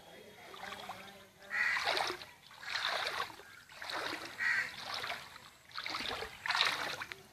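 Splashing in floodwater: about five separate splashes roughly a second apart.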